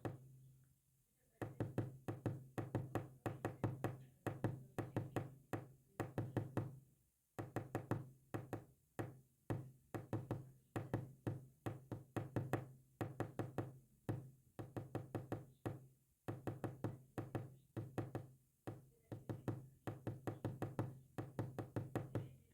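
Rapid knocks, each with a low ringing note, in quick runs of several strikes separated by short gaps: a tapped-out pattern presented as Morse code.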